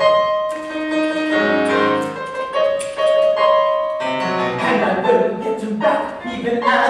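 Piano playing a slow passage of held chords and single notes.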